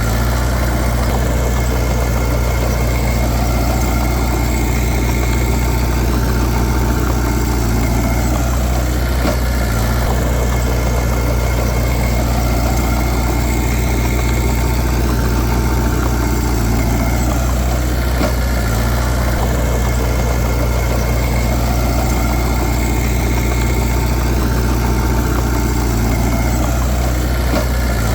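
Heavy diesel engine running steadily at a constant low pitch, a deep drone with no revving.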